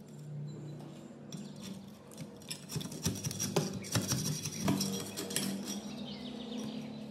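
A thin metal blade and a screwdriver scraping and chipping thick rust scale off a rusted electric water pump housing, with quick scratchy scrapes, crackling flakes and light metal clinks, busiest in the middle. A steady low hum runs underneath.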